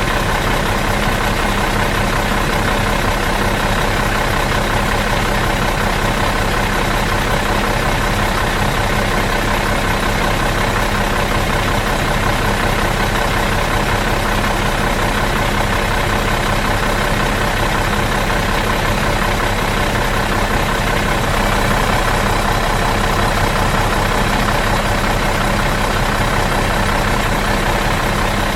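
Bus engine idling out of gear, a steady, even drone with no revving or change.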